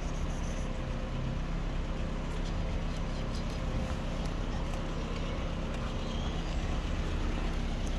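Steady low rumble of motor traffic, with a few faint ticks over it.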